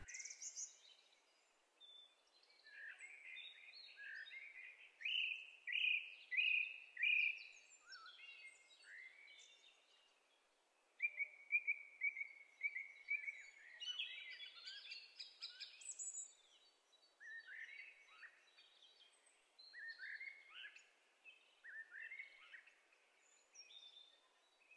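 Faint songbirds singing: short chirps, trills and quick runs of repeated notes from several birds, continuing with brief gaps.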